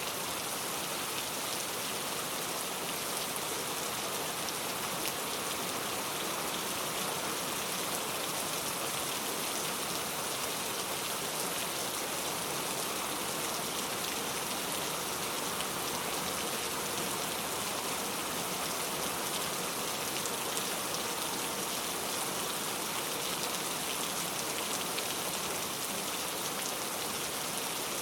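Steady rain falling on a surface, an even hiss with fine scattered patter of drops.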